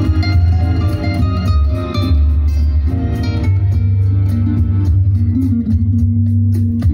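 Music with a heavy bass line and a steady ticking beat, played through a pair of Boston Acoustics A150 three-way floor speakers (10-inch paper-cone woofer, 4.5-inch midrange, 1.5-inch SEAS cloth-dome tweeter) during a listening test.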